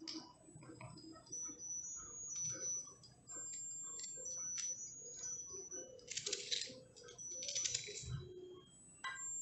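A small kitchen knife cutting raw onion pieces held in the hand, a run of light crisp clicks and crunches, with two longer, louder crunches in the second half.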